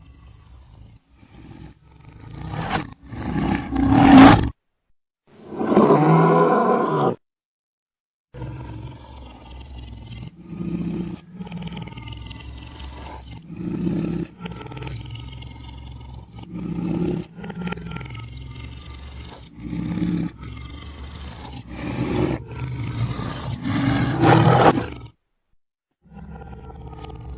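A lion's roaring bout played in reverse. Each call swells up and cuts off abruptly: a few big roars first, then a long run of shorter grunting calls about every second and a half, building to a louder one that stops suddenly near the end.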